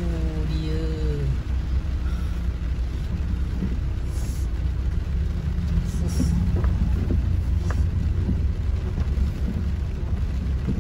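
Steady low rumble inside a car cabin: engine and tyre noise as the car drives slowly along a flooded road.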